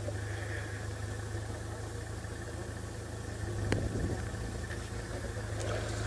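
A vehicle engine idling with a steady low hum, with one brief click a little past halfway.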